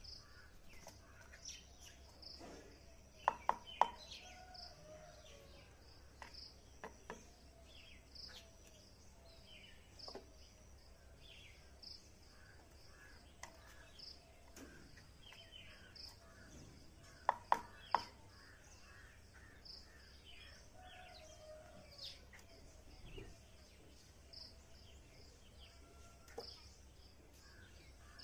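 Small bird pecking at its reflection in a motorcycle's rear-view mirror: twice, a quick run of three sharp taps, about 3 seconds in and again about 17 seconds in. Birds chirp throughout, with a high chirp repeating steadily.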